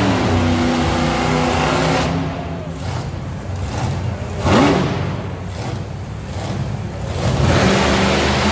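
Monster truck engine revving hard, its pitch climbing and falling as the truck works over a pile of crushed cars, with the sharpest rise about four and a half seconds in and another surge near the end.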